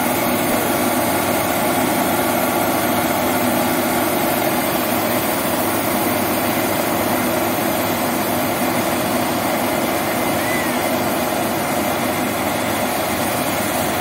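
Changfa crawler combine harvester running steadily at work, its engine and threshing machinery giving a constant even drone while the unloading auger discharges rice grain.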